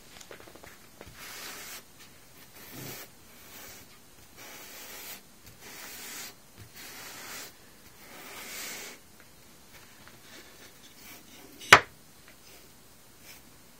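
Repeated rubbing or scraping strokes, each about a second long, then a single sharp click near the end.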